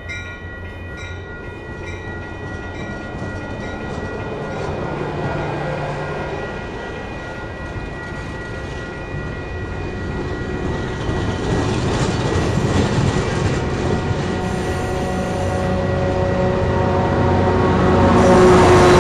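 Caltrain double-deck passenger cars rolling past at a grade crossing, their wheels running steadily on the rails. The crossing bell rings about twice a second over the first few seconds. The rumble grows steadily louder, loudest near the end as the EMD F40PH diesel locomotive draws up.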